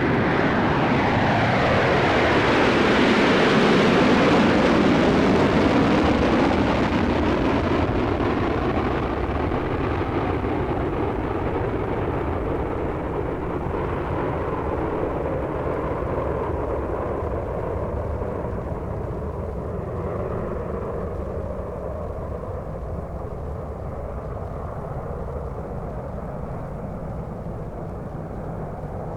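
Jet aeroplane taking off: its engine noise swells to a peak about four seconds in as its pitch falls steeply on passing, then settles into a steady roar that slowly fades as it climbs away.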